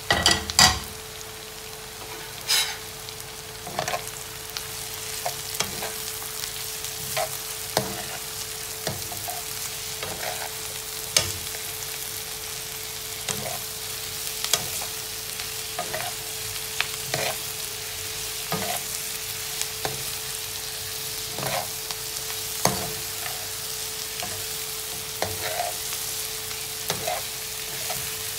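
Sliced mushrooms and onion sizzling in a nonstick frying pan, stirred with a slotted spatula that scrapes and taps against the pan every second or so. A louder clatter comes right at the start, and the sizzle grows a little after a few seconds.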